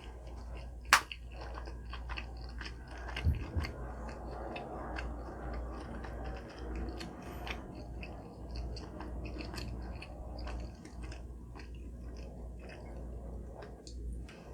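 Close-up chewing and eating sounds: soft, irregular crackles and smacks of a mouth working through food. A sharp click about a second in is the loudest moment, and a brief low thump comes a little after three seconds.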